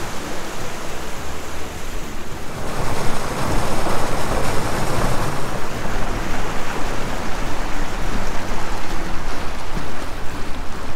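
Steady rush of wind and water noise as a Ranger Tug R25 motors along. It grows louder about three seconds in.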